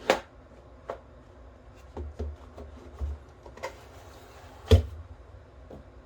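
Toy Beretta M9 pistol handled and worked: about seven sharp, irregularly spaced clicks and clacks, the loudest about three-quarters of the way through.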